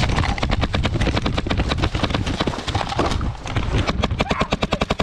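Airsoft field noise: thumps and jostling on the camera microphone over a low rumble, then, from about three and a half seconds in, a fast even string of airsoft gun shots, about ten a second, fired full-auto.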